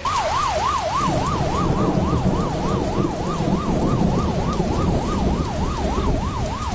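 Emergency vehicle siren in a rapid yelp, its pitch sweeping up and down about three times a second, over a steady rushing noise.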